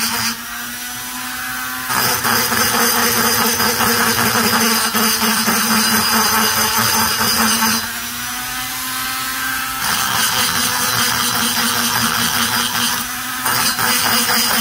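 Handheld rotary tool spinning a small burr, grinding the intake port of an Echo CS-670 chainsaw cylinder to remove casting marks and rough it up. A steady motor whine runs under the scratchy noise of the cut. The cutting noise drops away briefly near the start, about eight seconds in, and again near the end.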